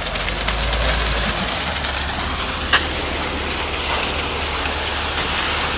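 Concrete mixer truck's engine running steadily under an even rushing noise, with one sharp click about two and a half seconds in.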